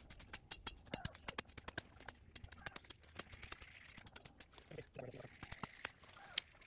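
Machete strokes chopping through weeds and brush: a rapid, irregular run of sharp clicks as the blade strikes stems, with rustling leaves between them.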